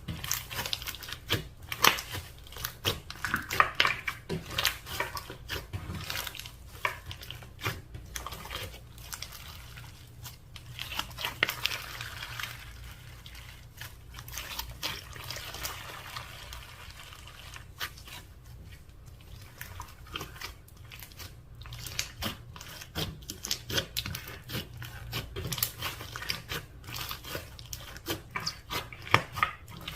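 Slime being mixed, with many irregular sticky clicks, pops and squelches.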